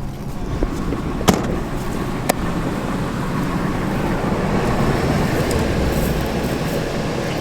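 Feed truck driving, a steady engine and road rumble, with two sharp clicks about a second and two seconds in.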